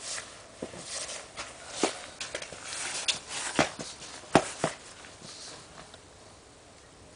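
Footsteps crunching in snow: a run of uneven crunches and knocks, the sharpest about two, three and a half and four and a half seconds in, dying away after about five seconds.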